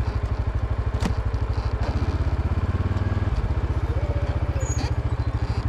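An ATV engine running with a steady, fast low throb, a little heavier for a moment about two seconds in. There is a single sharp click about a second in.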